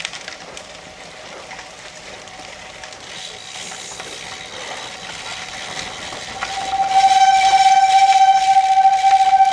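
Bicycle brakes squealing with a loud, steady high-pitched tone, held for about three seconds from about two-thirds of the way in, as the rider brakes on a wet downhill. Before the squeal, tyres hiss and crunch over loose pea gravel.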